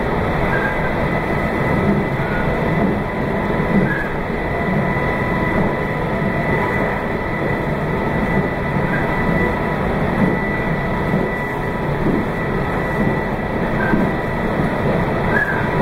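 Meitetsu 2200 series electric train running steadily at speed, heard from inside the front car: an even rumble of wheels on rail with a thin steady whine above it and a few faint short squeaks.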